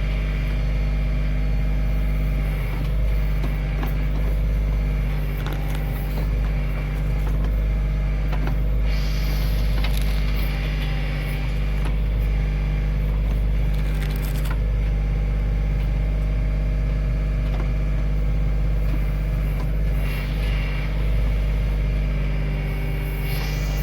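Kioti CK2610 compact tractor's three-cylinder diesel engine running steadily while the backhoe works, with a few brief hissing, scraping noises over the engine sound, about a third of the way in, midway and again near the end.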